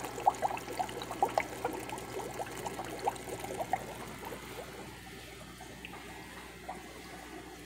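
Aquarium water bubbling and trickling, with many small bubble pops that are busiest in the first few seconds and then thin out, over a steady low hum.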